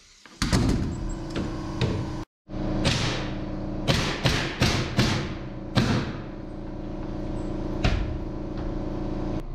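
Pneumatic nail gun firing nails through plywood underlayment into the subfloor: about ten sharp shots, each with a short hiss of exhaust air, coming in a quick run in the middle and a last one near the end.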